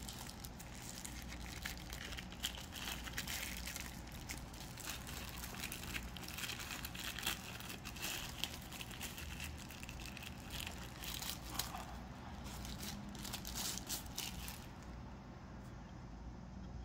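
Thin plastic packaging wrap crinkling and rustling as it is unwrapped from a bike light by hand. The crackling is irregular and faint, and dies down near the end.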